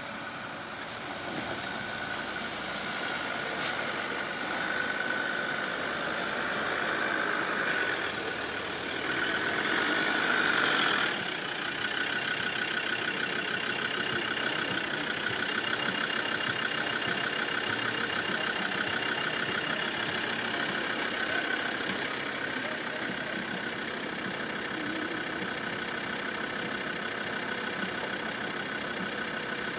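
Land Rover Discovery 3's 2.7-litre TDV6 turbo-diesel V6 running at low revs as the vehicle crawls over a deeply rutted dirt track, a steady engine note that is loudest around ten seconds in.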